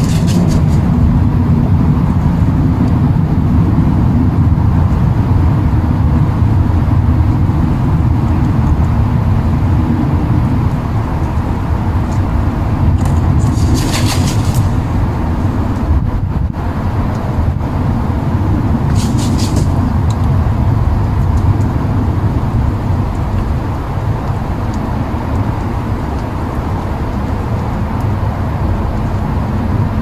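A loud, steady low outdoor rumble, with two brief high hissing sounds, about a third and about two-thirds of the way through.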